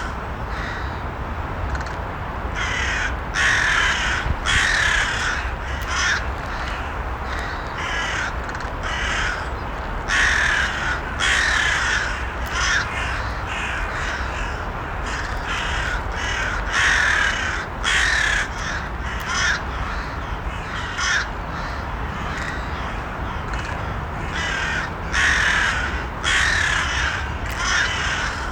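Crows cawing repeatedly, short harsh calls every second or so, over a steady low background rumble.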